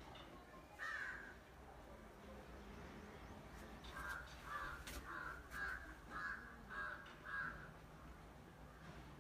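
Crow cawing: one call about a second in, then a run of seven short caws, about one every half-second.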